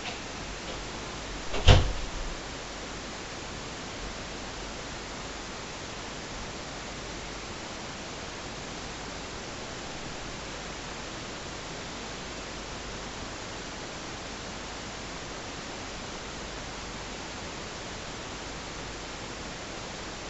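Steady hiss of a camcorder's microphone recording a quiet room, with one sharp knock from the bedroom door as it opens, a little under two seconds in.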